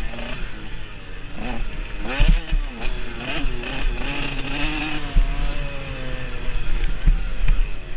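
Dirt bike engine being ridden, its pitch rising and falling as the throttle opens and closes through the gears, with a few knocks and rattles from the bike going over bumps.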